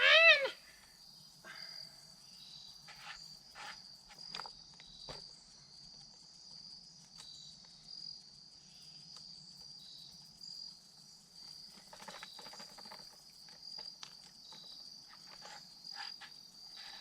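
Steady high-pitched insect chorus, with scattered light clicks and knocks from handling the chainsaw as its loose chain is adjusted.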